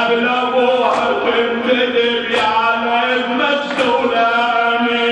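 A man chanting a raddadiya, an Arabic Shia lament, in long held notes that step up and down in pitch. A sharp beat comes about every second and a half.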